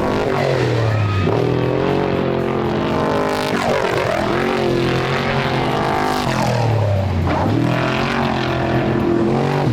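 Off-road race vehicle engines running hard, their pitch dipping and climbing again several times as the vehicles rev and go by.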